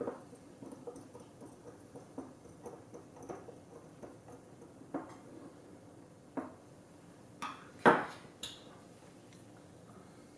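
Small hard parts and tools being handled: scattered light clicks and taps, about a dozen, with a louder sharp click about eight seconds in.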